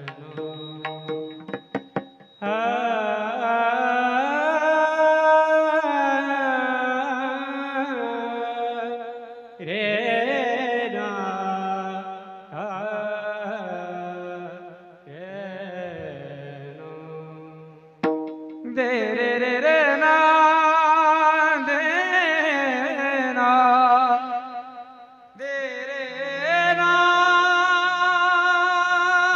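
Kirtan singing in a high male voice: long, ornamented sung phrases separated by short breaks, with pakhawaj drum strokes near the start.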